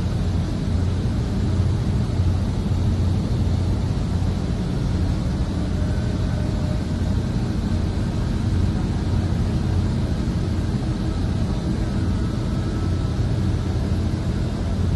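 Heavy machinery on an offshore platform running with a steady, loud low drone, with faint whining tones above it.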